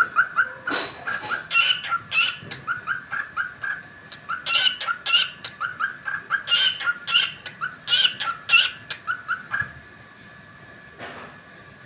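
Cockatiel chirping in a quick run of short, repeated calls, several a second, which stops about ten seconds in.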